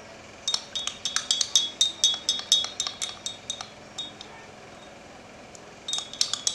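A spoon stirring a drink in a small glass mug, clinking quickly against the glass several times a second with a bright ring. The clinking stops for about two seconds in the middle and starts again near the end.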